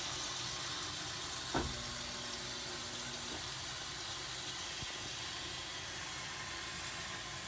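Drain water from an impeller top-load washer pouring steadily into a laundry sink, heard as an even rushing hiss. There is a single knock about one and a half seconds in.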